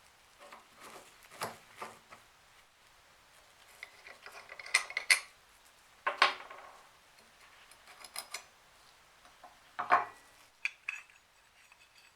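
Small metal parts clinking and knocking as they are handled and set down: scattered light clicks and scrapes with a few sharper metallic knocks that ring briefly, the loudest about six and ten seconds in.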